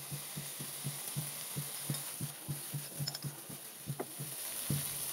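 Silicone spatula stirring a thick masala paste in a non-stick frying pan over a sizzling heat: a quick run of soft low thumps, about four a second, over a faint steady sizzle, with one sharper tap about four seconds in.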